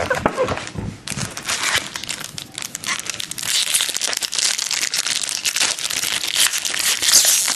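Foil trading-card pack wrappers crinkling as the packs are handled and lifted out of their box, the crinkling getting denser and louder from about three seconds in.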